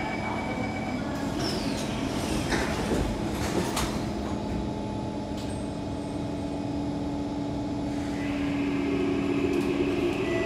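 Kawasaki C151 metro train cabin at a station stop: the doors slide shut with a couple of knocks about three seconds in, over the steady hum of the train's equipment. About eight seconds in, the traction motors start to whine as the train begins to pull away.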